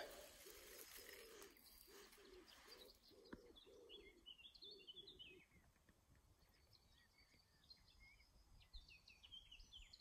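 Woodpigeon cooing faintly, a run of soft low coos that stops about five seconds in. From about three seconds in, a blackcap sings short high warbling phrases.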